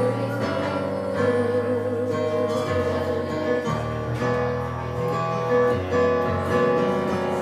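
Closing instrumental bars of a song: guitar accompaniment playing held chords, with the bass moving to a new note every second or so.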